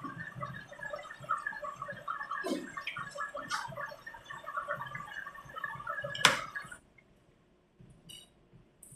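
Washing machine in its wash stage: water churning in the drum with a dense crackle of suds, cut off by a sharp click a little over six seconds in, after which it is almost quiet.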